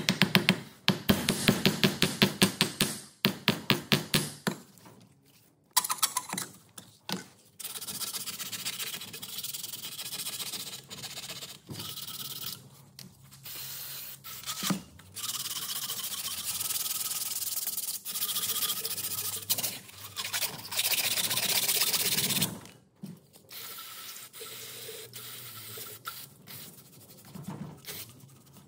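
A hammer tapping rapidly on a Zetor 3011's cast-iron cylinder head for about five seconds, followed by long hissing bursts of aerosol brake cleaner sprayed over the head, with scraping and handling of the metal between them.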